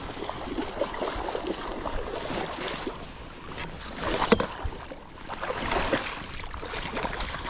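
Wind on the microphone and water washing against a boat hull, with one sharp click or knock about four seconds in.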